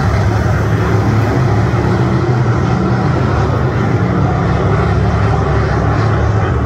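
Loud, steady drone of a race vehicle's engine held at an even pitch, with no revving up or down.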